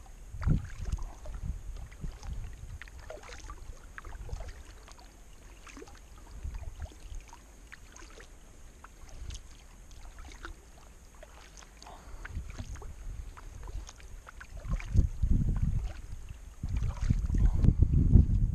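Kayak paddling: paddle strokes dipping and dripping in the river, with small splashes throughout. A low rumble, typical of wind on the microphone, swells louder in the last few seconds.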